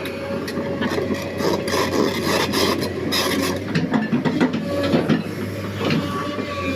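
Liugong crawler excavator travelling on its steel tracks: a dense, irregular clatter of clicks and scraping over the steady hum of the engine running.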